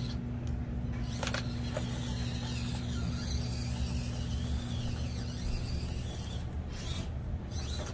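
Axial Deadbolt RC truck's electric motor and gear drivetrain whirring steadily as it crawls. The steady whine cuts out about two-thirds of the way in.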